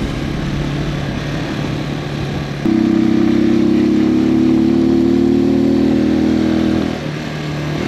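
Rusi Macho 175 motorcycle engine running on the move; a little under three seconds in the throttle opens and the engine note steps up to a louder, steady tone, easing off just before the end.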